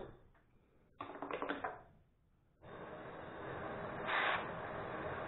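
Gas torch lit with a sharp pop, sputtering and crackling for a moment, then burning with a steady hiss that swells louder about four seconds in, as it heats a rusted plough share bolt.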